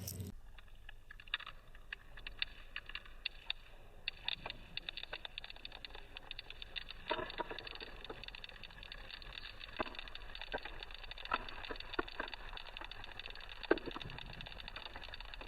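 Faint, irregular small clicks and taps, the loudest one near the end, over a steady background hiss with a faint high whine.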